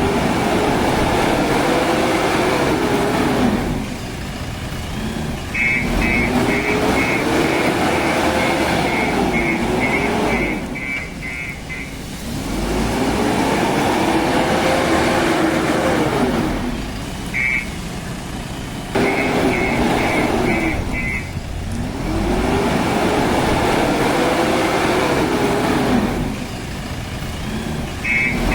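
JCB 3DX backhoe loader's diesel engine revving up and falling back in repeated cycles every several seconds, with bursts of rapid high beeping during some of them.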